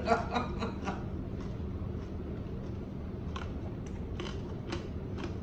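Quiet eating sounds: a scattering of faint clicks and crunches, most of them in the second half, from a fork and fingers working through crisp chicharrón and yuca served on a banana leaf.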